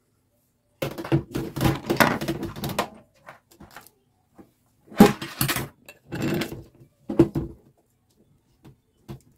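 Irregular clunks and metallic rattles as a new kitchen mixer tap and its flexible hoses are handled and fed through the tap hole of a stainless steel sink. A sharp knock about five seconds in is the loudest, and a few more clunks follow.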